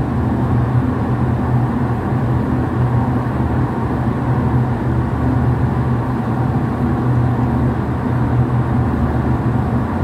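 Steady low machine hum with a rumbling noise, unchanging throughout.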